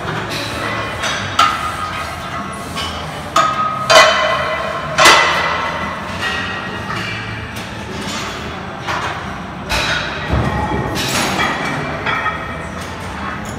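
Loaded barbell with bumper plates clanking as it is picked up off the floor and held: several sharp metallic clanks with brief ringing, the loudest about four and five seconds in, over steady gym background noise.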